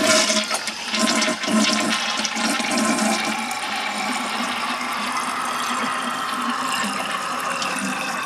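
Toilet flushing: a loud rush of water as the tank empties, settling into a steady hiss of water. The hiss is the newly installed plastic float-and-rod ballcock refilling the tank.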